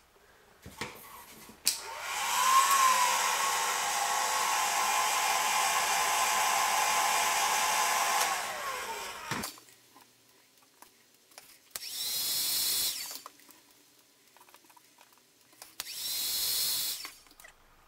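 Heat gun blowing hot air to shrink heat-shrink tubing over soldered motor-wire joins. After a couple of clicks it starts about two seconds in, its fan whine rising and then holding steady for about seven seconds before it winds down. Two shorter blasts of about a second each follow.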